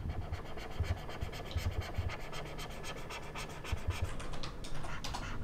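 Stylus nib scratching and tapping across the surface of a graphics pen display during drawing strokes: a quick, dense run of small scratchy ticks.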